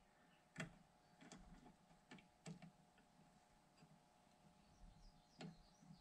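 Faint, scattered metallic clicks, about five over the few seconds, as a chuck key is worked in a metal lathe's chuck to lightly snug the jaws on a bar.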